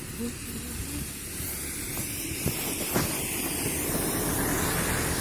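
Rain falling, a steady hiss that swells louder from about a second and a half in, with a couple of sharp ticks along the way.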